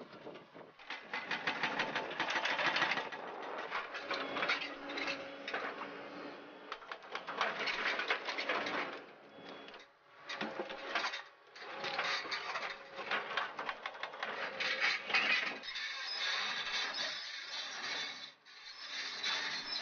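Excavator-mounted hydraulic breaker hammering rock and hard ground in a rapid, steady string of blows, with short pauses.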